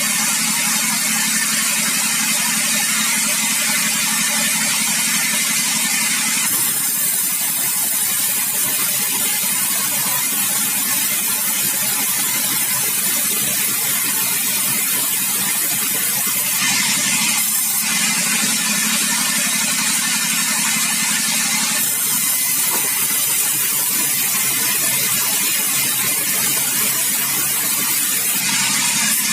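Sawmill machinery running: a steady engine-driven hum with a loud hiss over it, changing in tone a few times as the saw works.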